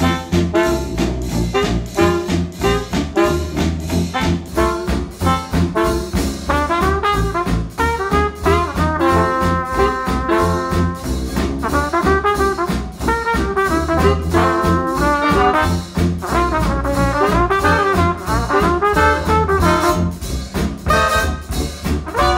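Retro jazz band playing a swing tune, led by trombone and trumpet over a steady beat.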